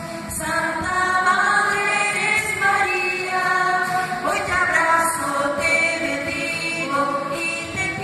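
A choir singing a slow melody in long held notes.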